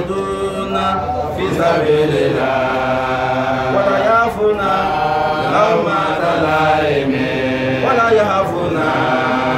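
A man's voice chanting a melodic Islamic religious recitation, drawing out long held notes with gliding turns.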